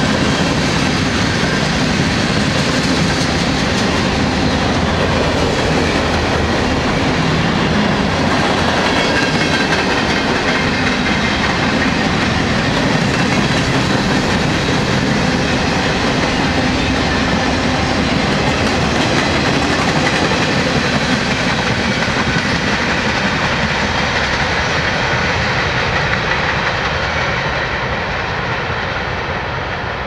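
Freight cars of a long mixed freight train rolling past, a steady loud noise of steel wheels running on the rails. Near the end it starts to fade as the last cars pass and move away.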